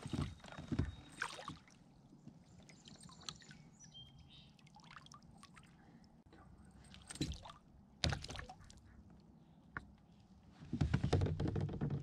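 Water dripping and trickling from a freshly caught smallmouth bass and wet hands into the lake beside a kayak. A few sharp clicks and knocks from handling, with a louder burst of handling noise near the end.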